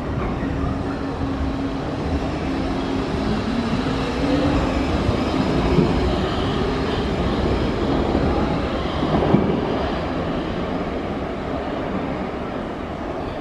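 Munich U-Bahn train pulling out of the station: its motor whine rises in pitch as it speeds up over the first few seconds, above a steady rumble of wheels on rail. The sound eases a little near the end as the train moves away.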